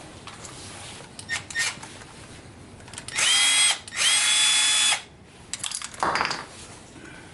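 Handheld power drill-driver run twice in short bursts of about a second, its motor whine rising quickly and then holding steady, backing out a hub bolt. A few tool clicks and a short rattle come before and after.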